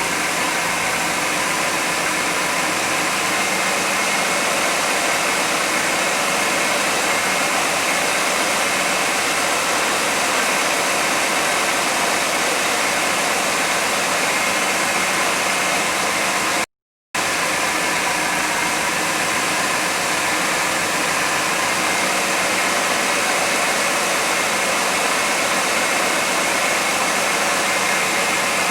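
1991 GMC Jimmy's engine idling steadily under a loud, even hiss with a faint steady whine. The sound cuts out for a split second about two-thirds of the way through.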